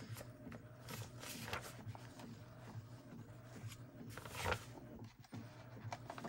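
Paper pages rustling and scraping as they are handled and slid onto the wire binding rings of a handmade journal, in short irregular bursts, the loudest about four and a half seconds in. A faint steady hum runs underneath.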